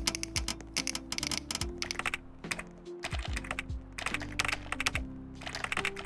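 Typing on a computer keyboard: runs of quick key clicks with brief pauses, over soft background music with held low notes.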